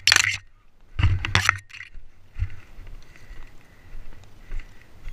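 Footsteps on dry, stony ground with scraping and rustling of brush and gear, two louder, longer scrapes in the first two seconds, then softer scuffs and dull thuds.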